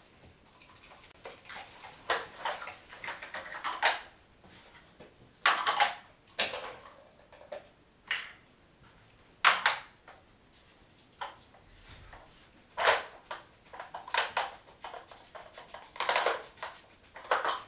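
Hard plastic blocks of a Dog Smart treat-puzzle board clattering and knocking as a dog nudges them with its nose and the board is moved. The knocks are short and come unevenly, every second or two.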